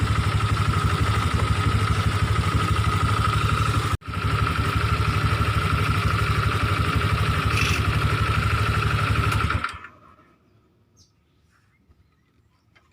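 Honda Vario scooter's single-cylinder engine idling steadily, a fast even pulsing with a steady whine over it. It breaks off for a moment about four seconds in, then is switched off about three-quarters of the way through. The scooter is running after the radiator fan's edges were sanded so they no longer rub the fan cover, and the grinding noise is now reduced.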